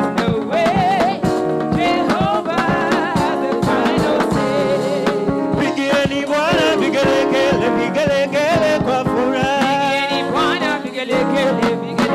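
Live gospel praise-and-worship music: a lead singer through a microphone over instrumental backing with a steady beat.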